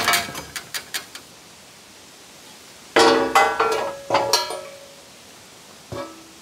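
Metal clanks ringing out from the steel frame and fittings of a portable bandsaw mill as a log is set and clamped on the bed: two loud clanks about three and four seconds in, one ringing on for most of a second, and a lighter knock near the end. A rattling noise dies away in the first second.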